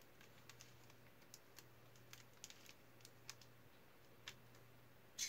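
Faint, irregular light clicks and taps from small wooden sticks and a plastic sheet being handled and fitted together by hand, with one louder click near the end, over a low steady hum.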